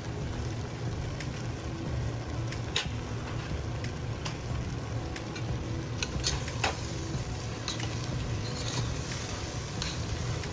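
A metal spoon scraping and clicking against a pot as rice, dal and vegetables are stirred and fried, with scattered clicks throughout over a steady low hum.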